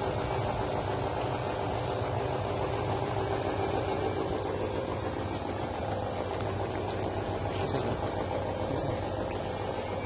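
Drum-type feather plucking machine running, its electric motor giving a steady, even hum.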